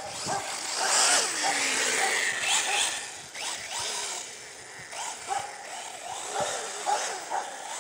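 Arrma Typhon 6S RC truggy's brushless motor and drivetrain whining as it speeds across grass on a 12-tooth pinion, the pitch rising and falling with the throttle, loudest about a second in.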